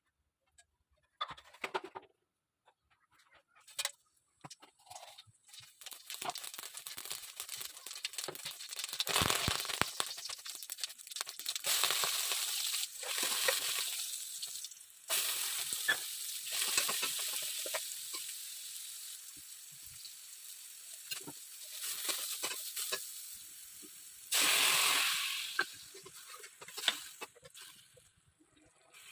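Dry puffed rice and other ingredients being stirred and tossed in a bowl: a rustling hiss that comes in long stretches, with scattered light clicks and taps. The first few seconds hold only sparse clicks.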